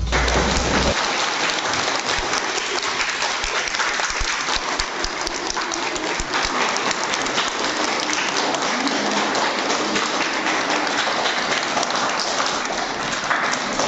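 Audience applauding steadily: many hands clapping together, held at an even level throughout.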